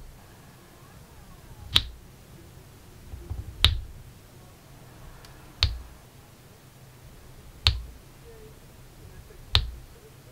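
Sharp clicks as a diamond-painting drill applicator presses square resin drills onto the sticky canvas, five taps about two seconds apart, each with a soft thud underneath.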